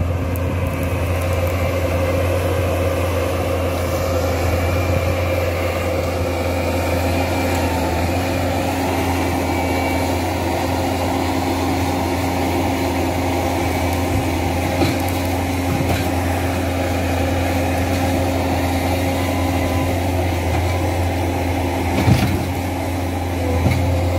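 Diesel engine of a Bobcat compact track loader running steadily at a constant speed close by, with a single knock near the end.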